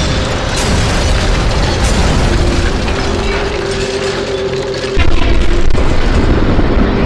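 Animated battle sound effects: a dense, continuous run of explosions and blast noise, with a held tone through the middle and a sudden louder blast about five seconds in.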